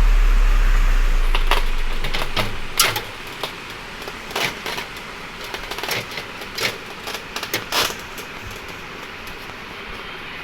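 Background music fades out over the first two seconds. Then come scattered sharp clicks and light metallic taps, about a dozen at irregular intervals, as PC parts are handled and fitted into a metal computer cabinet.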